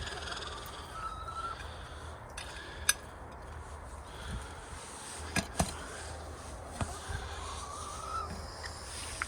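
Backyard poultry calling: a drawn-out rising call near the start and another near the end, with a few sharp clicks in between, over a steady low rumble of wind on the microphone.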